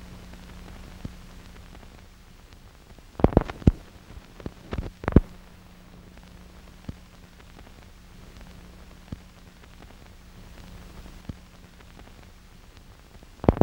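Steady low hum and hiss, broken by sharp clicks and pops: a cluster of them about three seconds in, a few more around five seconds, and another cluster near the end.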